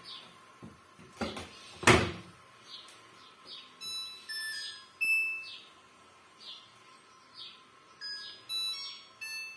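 Door of a Samsung front-loading washing machine shut with two knocks, the second the louder, between one and two seconds in. About four seconds in the washer plays its electronic power-on tune of short stepped tones, and near the end another short run of tones sounds as its panel buttons are pressed. Faint chirps repeat about once a second behind them.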